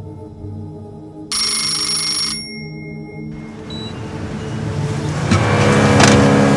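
A rotary telephone's bell rings once, for about a second, over a film score with low held tones. After that a rushing noise swells louder, with one sharp hit near the end.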